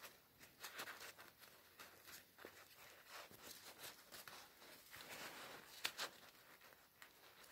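A thin, shiny plastic raincoat rustling and crinkling faintly as a gloved hand crumples and rubs it. There are irregular small crackles throughout, and a sharper crackle about six seconds in.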